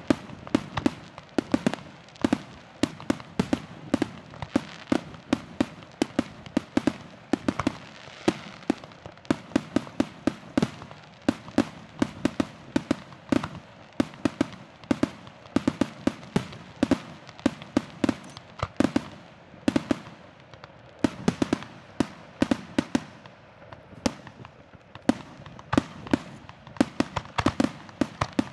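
Fireworks display: aerial shells bursting in a rapid, continuous string of sharp bangs, several a second.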